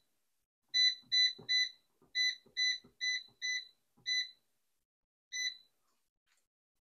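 Cosori air fryer's touch control panel beeping once for each button press as the cooking time is stepped down. About nine short, high beeps come roughly half a second apart, the last after a gap of over a second, with faint finger taps on the panel.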